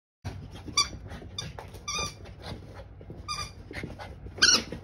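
A Bichon Frise at excited, frantic play, with a string of short, sharp, high-pitched squeaks about once a second over rustling movement on carpet. The last squeak, near the end, is the loudest.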